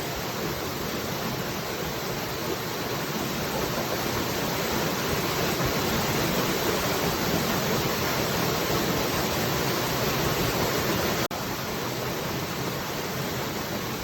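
Falling water, a steady continuous rush, with a momentary dropout about eleven seconds in.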